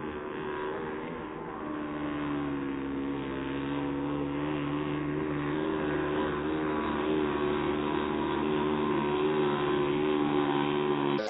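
Radio-controlled racing hydroplane's motor running at speed, slowed and pitched down by slow-motion playback into a low, steady drone. It grows louder as the boat comes nearer.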